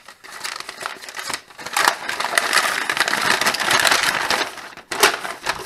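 Folded paper instruction manual rustling and crackling as it is handled and unfolded, loudest in the middle, with a sharp crackle near the end.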